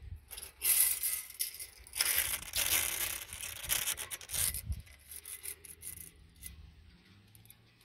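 Rubbing and scraping noises in uneven bursts, the longest from about two to four and a half seconds in, then dying away.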